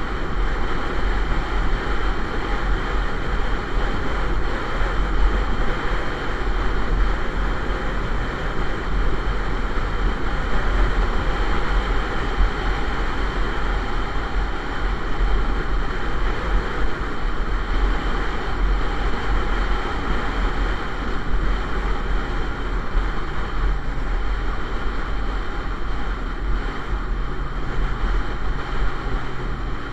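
Steady rush of wind on the microphone and road noise from a motorcycle cruising at steady speed, with a deep rumble beneath that holds even throughout.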